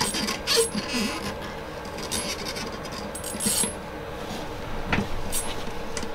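Ice fishing reel being cranked in several short bursts, each with a thin mechanical whine, as a hooked fish that is putting up a fight is reeled in. There is a single knock about five seconds in.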